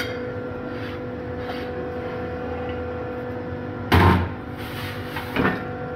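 Hydraulic press pump humming steadily. About four seconds in, a heavy steel die block is set down onto the bending die with a loud metal clunk, and a lighter knock follows a second and a half later.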